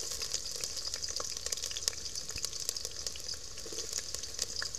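Sliced red onions frying in hot cooking oil in a metal pot: a steady, bright sizzle with many small crackles.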